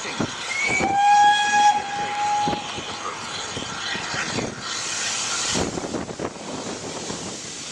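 Steam whistle giving one blast of about two seconds, a chord of several tones that rises slightly in pitch as it opens, from a steam railcar. A short burst of hiss follows about five seconds in.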